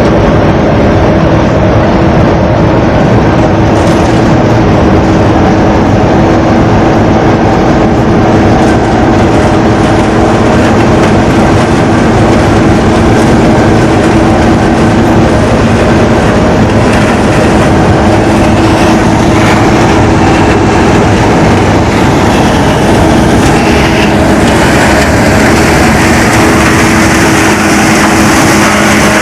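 Combine harvester running steadily, loud and close, a continuous engine note under clattering machinery noise. A hissier, higher sound joins in about 24 seconds in.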